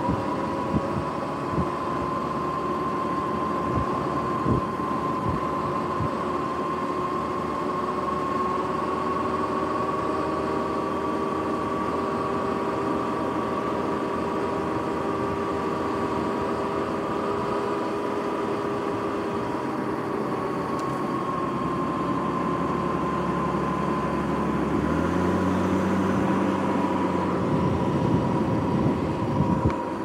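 Sur-Ron X electric dirt bike riding at a steady cruising speed: a steady electric drivetrain whine, its pitch drifting a little with speed, over tyre and wind noise. A few light knocks sound in the first seconds, and a lower hum swells in near the end.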